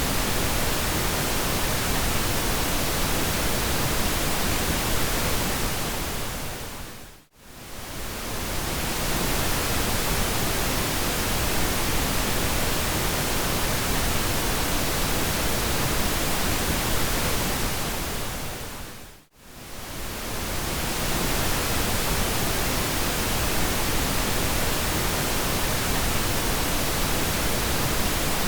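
Steady pink noise, an even full-range hiss. It fades down to near silence and back up twice, about seven and nineteen seconds in, over a second or two each time.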